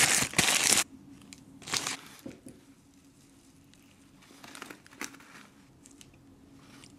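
A paper burger wrapper crinkling loudly as it is opened out during the first second, then a few softer rustles of wrapper paper about two seconds in and again near five seconds.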